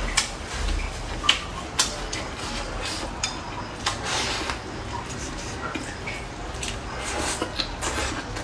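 Tableware clicking during a meal: chopsticks tapping against bowls and plates in scattered, irregular sharp clicks.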